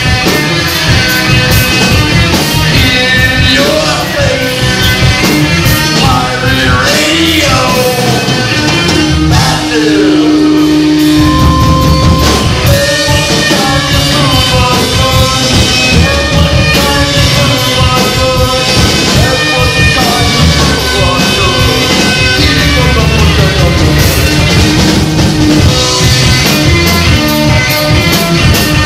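Rock band playing live, loud and full, with a singing voice over guitar and drums.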